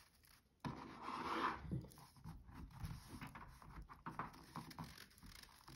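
Rustling and rubbing as a rice-filled sock is squeezed and shaped by hand, the knit fabric and the rice inside shifting. It starts suddenly about half a second in, is loudest over the next second, then continues as fainter handling noise.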